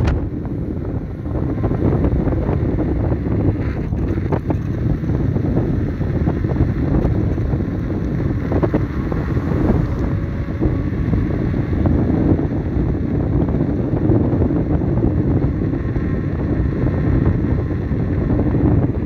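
Loud, steady rush of wind on the microphone from riding a Begode T4 electric unicycle at about 50 km/h.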